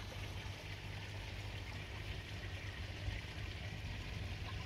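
Steady sound of running, trickling water at a garden pond, with a low steady hum underneath.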